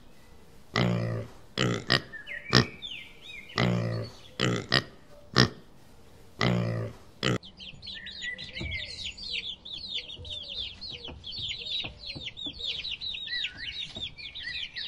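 Wild boar grunting, a series of short low grunts. About halfway through it cuts off and a brood of young chicks takes over, cheeping in a dense chorus of high, falling peeps.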